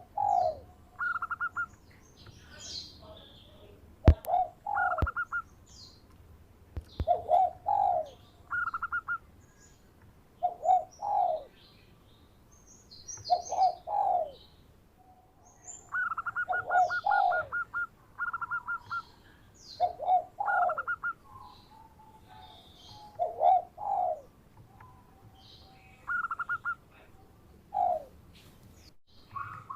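Zebra dove (perkutut) singing its cooing song. A phrase of low coos and a rapid run of short notes repeats about every three seconds, with fainter high chirps from small birds in between.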